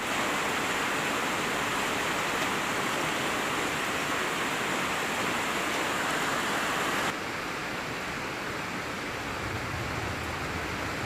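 Heavy rain as a steady hiss, which cuts abruptly to a softer rain about seven seconds in. A low rumble of thunder begins near the end.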